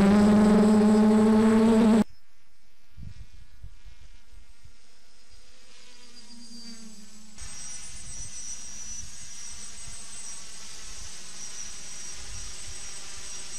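Electric multicopter's motors and propellers buzzing as it flies overhead, faint and steady like a swarm of flies. In the first two seconds a much louder, wavering pitched drone is heard, and it cuts off suddenly.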